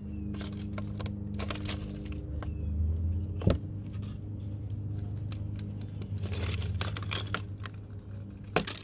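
Brittle, sunbaked vinyl wrap crinkling and tearing as it is peeled off a van's interior panel by hand, in many small irregular crackles with a sharp snap about three and a half seconds in and another near the end, over a steady low hum.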